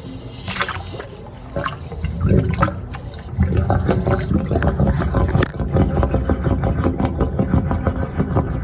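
Water rushing and gurgling through a sewer line, with an irregular, knocking low rumble that grows louder about two seconds in and again about three and a half seconds in.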